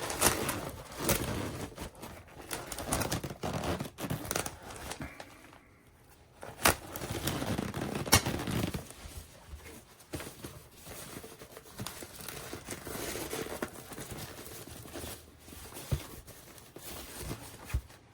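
Crinkling and rustling of packaging being handled, with a few sharp clicks and knocks in between.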